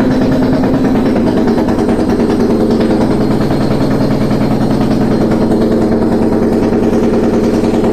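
Indesit IWE 6125 washing machine running loudly, with a steady hum and a fast, even rumbling pulse throughout. This is the abnormal noise the owner calls bad sounds.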